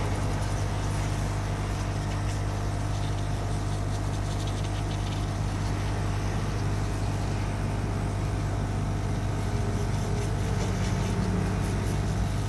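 Hot air rework station blowing with its heater off, a steady hum with a hiss of air, used to dry a freshly washed phone motherboard.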